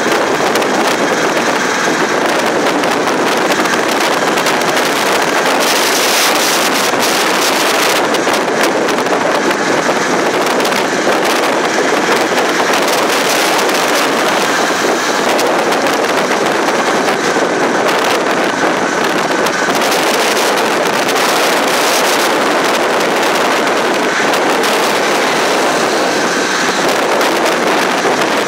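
Auto-rickshaw under way at speed: its small engine running, with wind and road noise buffeting the microphone in a loud, steady rush.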